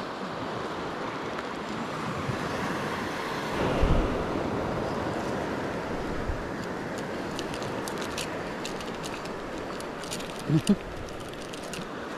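Steady wash of sea waves and wind on the microphone, with a single thump about four seconds in, scattered light clicks in the second half and a brief voice sound near the end.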